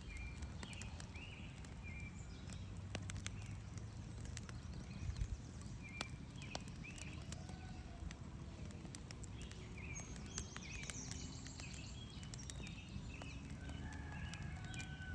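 Wood campfire crackling with irregular sharp pops, a small cluster of louder pops about five seconds in, over the steady rush of a nearby stream. Birds chirp intermittently in the background.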